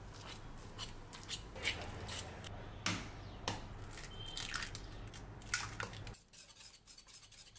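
A metal fork mashing overripe bananas in a ceramic bowl, with scattered clicks of the fork on the bowl and soft squishing, then eggs cracked into the mashed banana.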